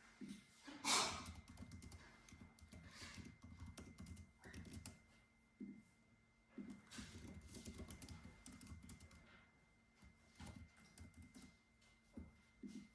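Typing on a computer keyboard: soft, irregular key clicks in short runs with pauses between them. About a second in there is one louder, longer rustling noise, and a faint steady high tone runs underneath.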